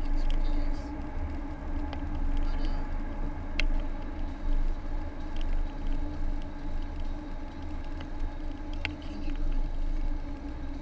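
A car driving on a city road, heard from inside the cabin: a steady low rumble of engine and tyres under a constant drone, with two faint ticks about five seconds apart.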